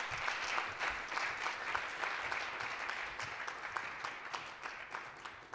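Audience applauding, a dense patter of many hands clapping that tapers off towards the end.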